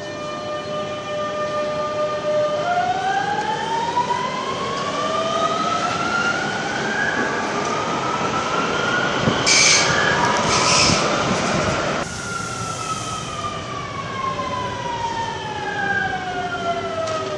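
Electric metro trains in an underground station: the motor whine of one climbs in pitch as it pulls away, with two short hisses about two-thirds of the way through. Then, after an abrupt change, a train's whine falls steadily in pitch as it slows down.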